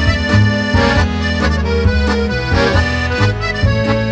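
Background music with an accordion lead over a bass line that changes notes in a steady rhythm.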